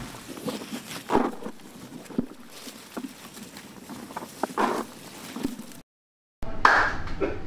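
Irregular rustling of leaves and soft knocks, about once a second, from hand-picking yellow squash and dropping them into a bucket. Near the end the sound cuts out for half a second, then a single louder thud.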